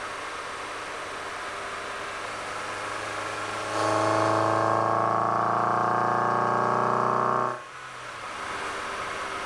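Mazda Miata NB's four-cylinder engine and intake: steady cruising hum at first. About four seconds in, the throttle opens and the intake note grows loud, rising steadily in pitch under acceleration, then drops off suddenly near the end.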